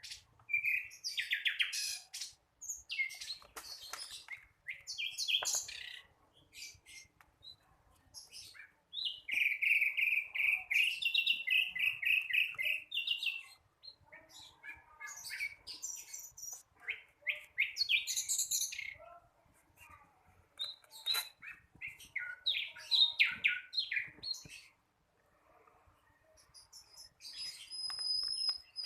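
A young sikatan londo flycatcher, still learning its song, sings bursts of high chirps and short warbling phrases with brief pauses between them.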